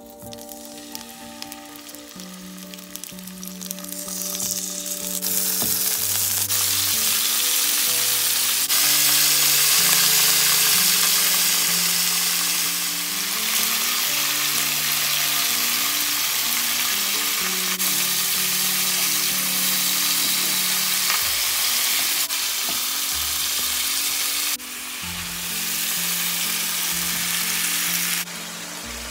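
Marinated chicken drumsticks frying in hot oil in a pan: a loud, steady sizzle that builds over the first five seconds as the pieces go in.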